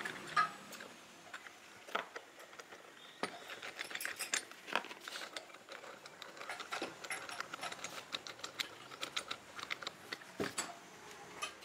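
Irregular small metallic clicks, ticks and light knocks of metal parts being handled and worked, with a few sharper knocks near the start and about ten and a half seconds in.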